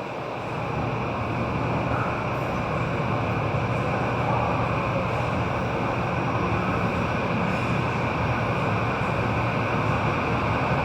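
Airbus A320's twin turbofan engines running at low taxi power: a steady rush with a high whine over a low rumble.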